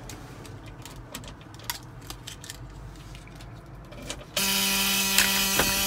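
Small clicks and rattles of a key and switches in an old Western Star semi truck's cab. A little over four seconds in, a loud steady dashboard warning buzzer comes on suddenly as the ignition is switched on.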